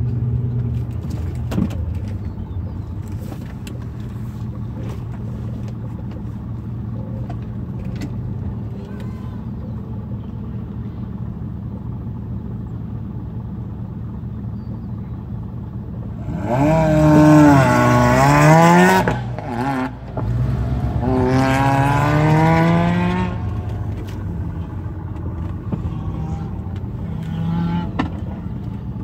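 Car engine idling steadily. Through the middle, a car engine accelerates hard in two loud runs a few seconds each, its pitch climbing and dropping with throttle and gear changes.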